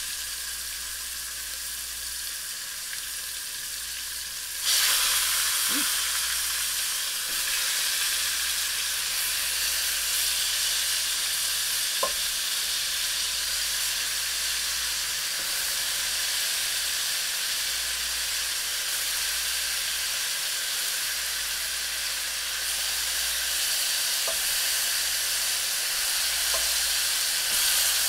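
Oxtail pieces sizzling as they sear in hot fat in a frying pan, browning before pressure cooking. The sizzle jumps louder about five seconds in, as more meat goes into the pan, then holds steady, with a few light knocks.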